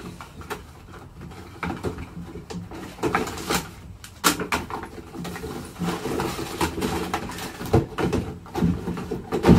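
Plastic packaging rustling and crinkling, with irregular clicks and knocks, as the parts of an epoxy crack-injection kit are unpacked by hand.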